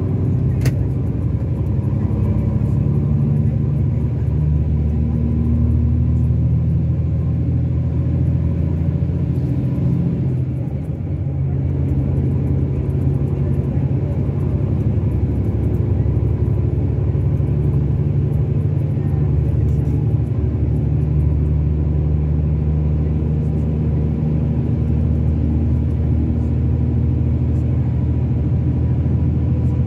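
Mercedes-Benz O-500RSD 2441 coach's rear-mounted six-cylinder turbodiesel running under way, a steady low drone whose pitch steps up and down a few times. Its loudness falls off briefly about ten seconds in, then picks up again.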